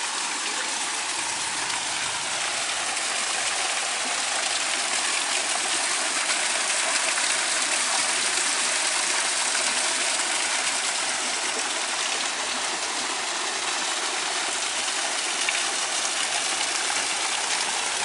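Water pouring from inlet pipes into concrete trout-farm raceway ponds: a steady splashing rush of water.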